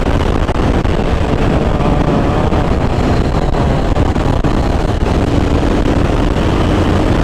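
Motorcycle riding at speed: wind buffeting the microphone over a steady engine drone.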